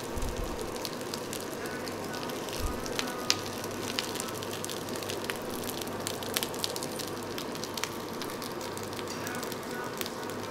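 Food sizzling on a tabletop barbecue grill, a steady hiss with many small crackling pops.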